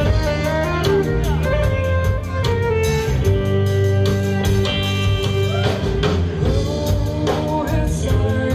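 Live band playing: electric guitars and fiddle over bass guitar and drum kit, with an even drum beat and some sliding notes.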